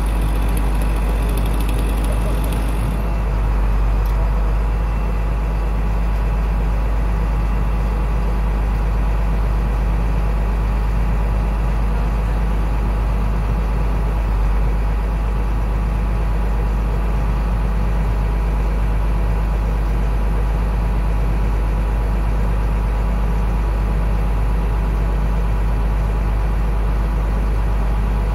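Engine of a heavy tree-work machine idling steadily close by, a deep even rumble. A high hiss over it cuts off about three seconds in.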